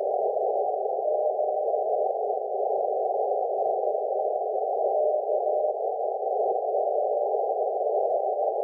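SunSDR2 DX transceiver's receiver audio in CW mode on the 20 m band: a steady hiss of band noise squeezed through the narrow CW filter, with faint short Morse tones from a weak signal sounding now and then.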